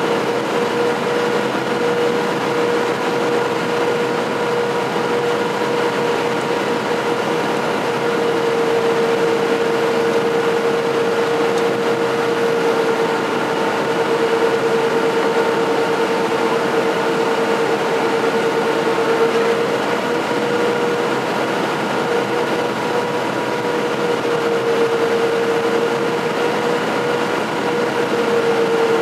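Cabin noise inside a Boeing 737-700 on approach: a steady rush of airflow and CFM56-7B jet engine noise with a droning hum that wavers slightly in pitch now and then.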